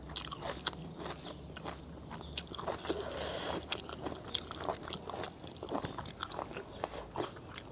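A person chewing a mouthful of seafood rice-noodle salad with shrimp: irregular wet clicks and crunches, with a brief hiss about three seconds in.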